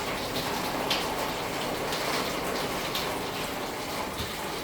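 Rainwater running and splashing steadily, with scattered drips.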